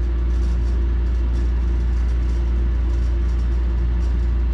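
Steady low machine hum with a faint higher tone on top.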